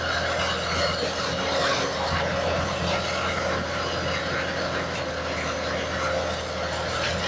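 Skid steer's engine running steadily, a constant low hum with a few steady tones over it.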